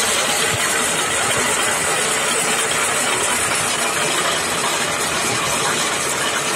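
Homemade electric mortar mixer running steadily: an electric motor drives the drum through a V-belt and pulleys while sand and cement mortar churns in the turning drum.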